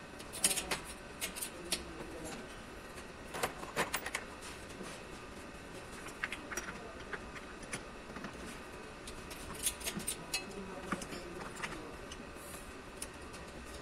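Steel lifting chain clinking and rattling against itself and the engine as it is looped and hooked around the engine block, in irregular clusters of short metallic clinks.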